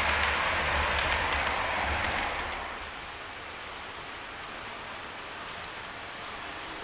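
Model train cars rolling along a shelf-mounted O-gauge track, a steady rumble with a low hum as they pass close by, fading to a quieter steady rolling sound about two and a half seconds in as the train moves away along the shelf.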